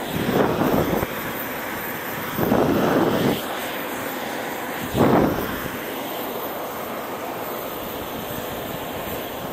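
Steady aircraft engine noise across an airport apron, with three loud gusts of wind buffeting the microphone in the first half.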